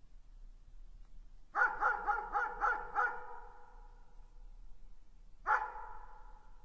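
A dog barking: a quick run of about six barks, then a single bark a few seconds later, each ringing on briefly after.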